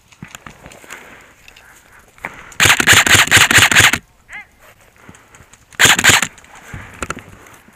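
Airsoft rifle firing two full-auto bursts close to the microphone, a rapid mechanical rattle of shots. The first burst lasts about a second and a half; a short burst follows about two seconds later.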